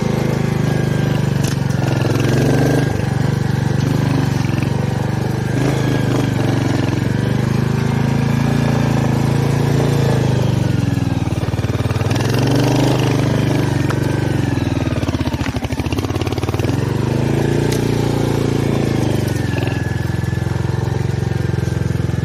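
Royal Enfield Hunter 350's single-cylinder engine running at low revs as the bike is ridden over a rough trail, its note rising and falling with the throttle.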